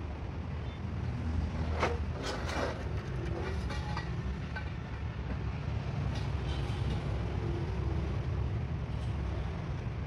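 Small metallic clicks and taps as a turn-signal lamp and its mounting nut are handled and threaded on by hand, a cluster of them about two seconds in and fainter ones later, over a steady low rumble.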